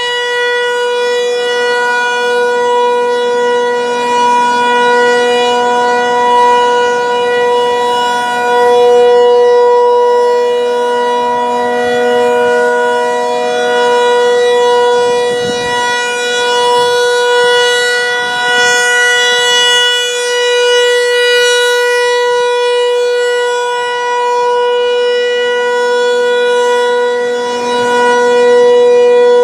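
Federal Signal 508 rotating outdoor warning siren sounding the steady alert signal: one held tone that does not change pitch, swelling and fading in loudness as the siren head rotates.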